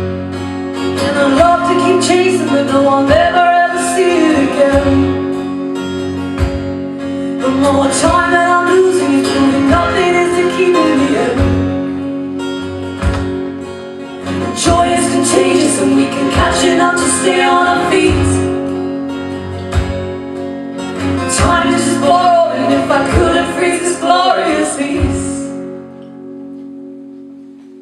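Live folk song: strummed acoustic guitars with singing in four phrases over them, the music fading away on a last ringing chord near the end.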